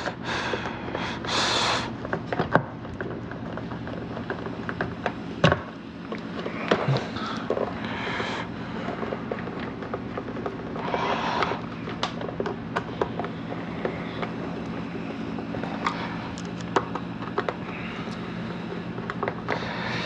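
Hand screwdriver driving screws into a white plastic vacuum-cleaner housing part, with scattered clicks and a few longer scraping stretches as the plastic parts are handled. A steady low hum runs underneath.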